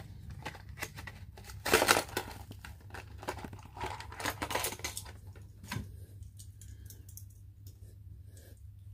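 Clear plastic blister packaging on a cardboard backing card crinkling and tearing as hands pry it open. The loudest rip comes about two seconds in and another spell of crackling around four to five seconds; after that only light handling clicks.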